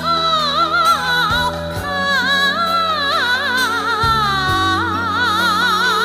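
Music from a Chinese pop song: a voice sings long held notes with wide vibrato over sustained chords and a steady bass line.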